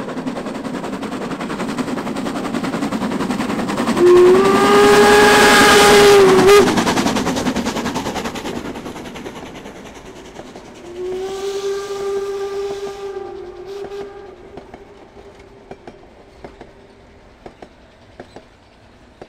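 DR Class 99.23–24 2-10-2T metre-gauge steam tank locomotive passing with its train: steady exhaust, then two steam-whistle blasts, a loud one about four seconds in and a fainter, longer one around eleven seconds whose pitch sags as it ends. As the train draws away the coach wheels click on the rails.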